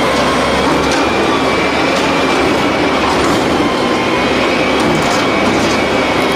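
Steady, loud mechanical rumble and hiss of a heavy vehicle running, cutting off suddenly at the end.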